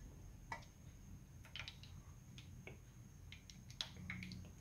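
Oil spitting in a frying pan of sausages: scattered faint pops and ticks at irregular intervals, over a low steady hum.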